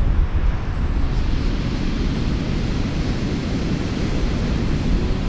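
Ocean surf breaking on a sandy beach: a steady wash of wave noise.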